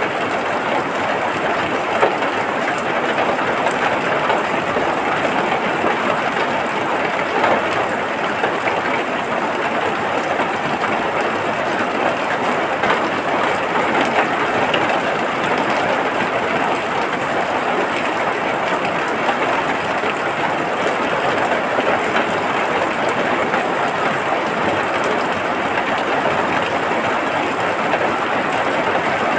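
Steady rain falling, an even hiss with a few louder drops here and there.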